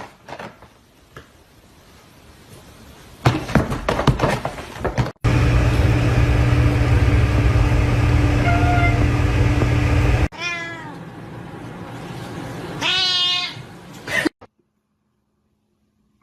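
Domestic cat meowing: two drawn-out calls, one a little after the middle and one near the end. Before them a loud steady noise with a low hum runs for about five seconds and cuts off abruptly.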